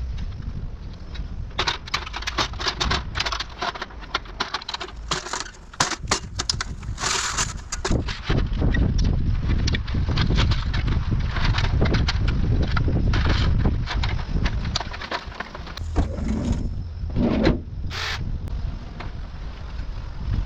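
Tree branches cracking and splintering in many quick, sharp snaps over a steady low rumble.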